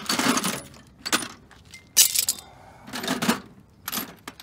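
Metal hand tools clattering and jangling as a hand rummages through a red metal toolbox, in several short bursts.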